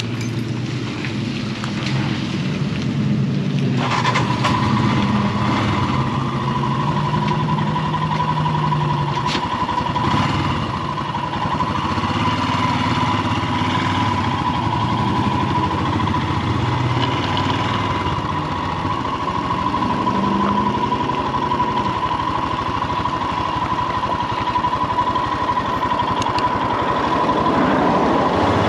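Royal Enfield Himalayan's single-cylinder engine running as the motorcycle moves off slowly, heard from the rider's seat. A steady high whine joins about four seconds in and holds.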